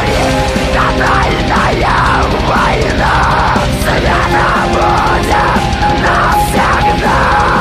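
Loud, dense black metal music playing without a break.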